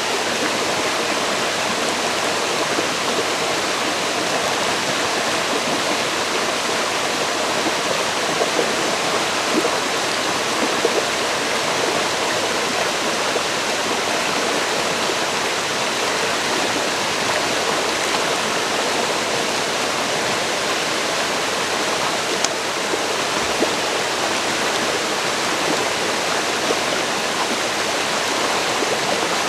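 Forest river flowing over rocks: a steady, even rush of water with small splashes, unbroken throughout.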